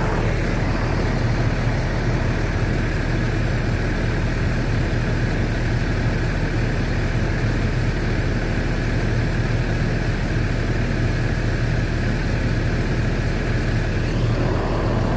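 Intercity bus diesel engine idling steadily.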